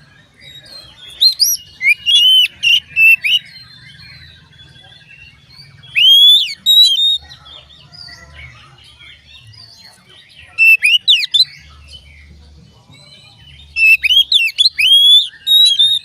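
Oriental magpie-robin (kacer) singing: four loud bursts of varied whistled phrases with quick rising and falling notes, separated by pauses filled with faint chattering.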